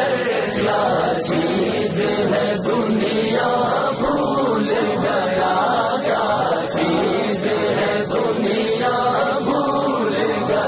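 Several voices chanting together in harmony, the vocal backing of a naat.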